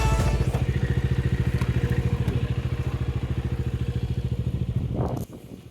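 Motorcycle engine idling with a steady, even beat, then cut off abruptly about five seconds in.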